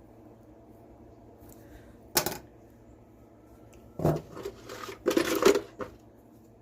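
Small metal hand tools clacking and clattering as they are handled and put away in a tool box: one sharp clack about two seconds in, then a run of clatter in the second half.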